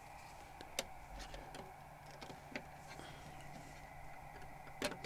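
Light clicks and taps of 3D-printed plastic stand pieces being handled and fitted together on a wooden table: a few scattered clicks, with a louder double click near the end, over a faint steady hum.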